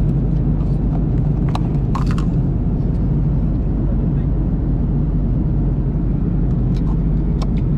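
Steady drone of an Airbus A330-300 cabin in flight, the low rumble of engines and airflow. A few light clicks and crackles of plastic meal-tray lids being handled, around two seconds in and again near the end.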